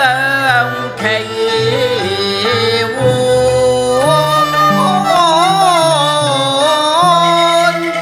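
Cantonese opera (yuequ) music from a band of Chinese and Western instruments: a melody line that slides and wavers, over steady held low notes.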